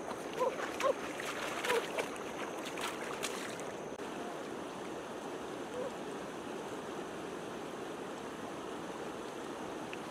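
Steady rush of shallow river water flowing over rocks. In the first few seconds, a few short high-pitched cries and sharp splashing clicks ride over it, then the water noise alone goes on.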